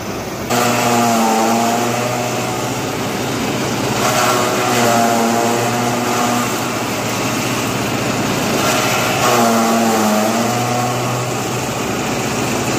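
Electric straw kneading machine (Duoluo 9ZR-4.8) running at full speed, shredding dry crop stalks fed in by hand, with a steady mechanical din and a rushing of chopped straw blown out. Three times, for about two seconds each, a clear humming tone rises over the din as bundles of stalks pass through.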